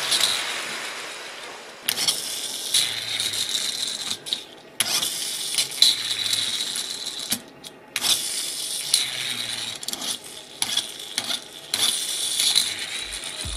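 Small plastic Kinder Surprise toy motorcycle with a little geared motor, set going by hand and let go about four times; each run whirs and clicks through its gears for a couple of seconds as it rolls, then dies away.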